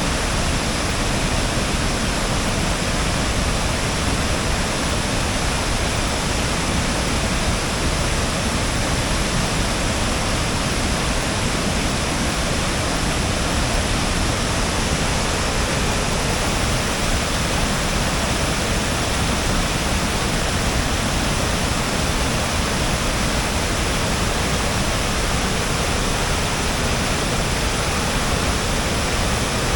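Waterfall: falling water rushing steadily and evenly, without change.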